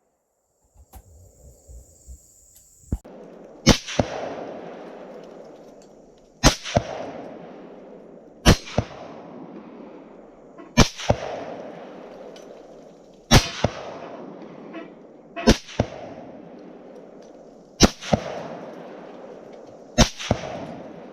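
Rifle shots from a 6.5 Grendel AR-15, fired at a steady pace of about one every two seconds. There are about eight shots, each followed by a long echoing tail. A few faint clicks come before the first shot.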